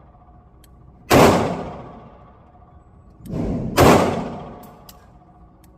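Two loud 9mm pistol shots about two and a half seconds apart, each ringing out for about a second, with a softer bang just before the second shot.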